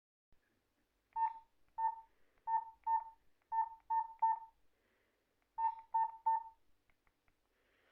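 Nokia 206 keypad tones: ten short beeps, all of one pitch, coming in small bunches of two and three as keys are pressed.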